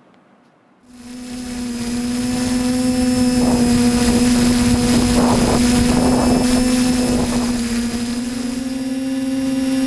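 A motor-driven machine starts up about a second in and runs steadily with a constant hum over a hiss, its pitch rising slightly near the end.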